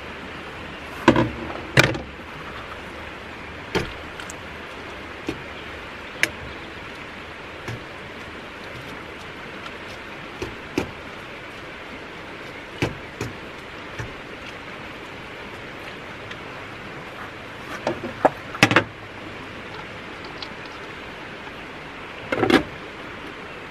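Steady rushing of a nearby river, with a dozen or so short knocks and clicks at uneven intervals, the loudest about a second in and twice near the end.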